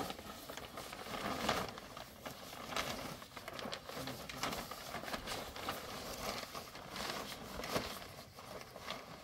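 Irregular light knocks and clicks with rustling, a few sharper knocks standing out among them.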